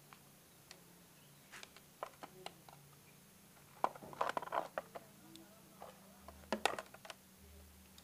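Scattered clicks and light rattles of hands handling analog multimeter test leads and washing-machine motor wires, busiest around the middle and again near the end, over a faint steady hum.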